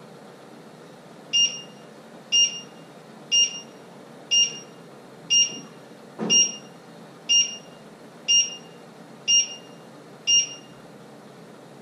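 Electronic alarm beeping: ten short high beeps, one a second, then stopping. A dull knock comes about six seconds in, over a steady background hiss.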